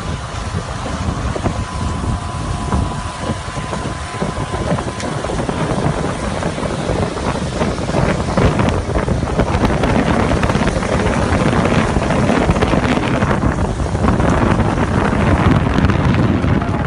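Wind buffeting the microphone over a steady low rumble, growing louder about eight seconds in.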